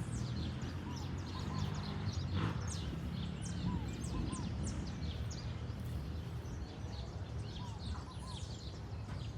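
Many small birds chirping over one another in short, quick, falling notes, with another bird repeating a short arched call in pairs now and then. A steady low rumble runs underneath.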